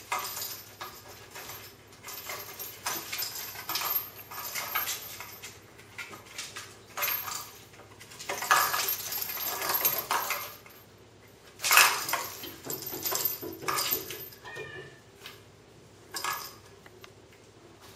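Kittens wrestling and playing with a cardboard puzzle box on a tile floor: irregular scuffles, paws and bodies knocking against the cardboard, and toy balls clattering inside the box, in bursts with short lulls between.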